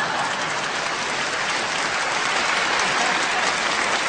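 Concert audience applauding steadily after a joke.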